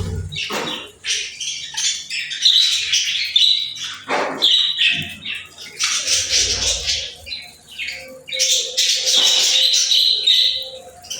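Pet budgerigars chattering and chirping in quick, overlapping bursts. A few dull low thumps come in among the chirps.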